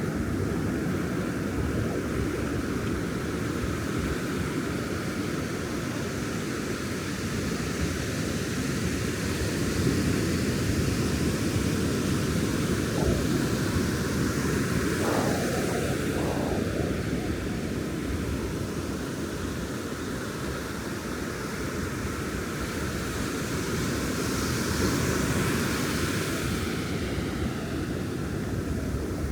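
Ocean surf breaking on a beach, a steady wash of waves rising and falling in slow swells.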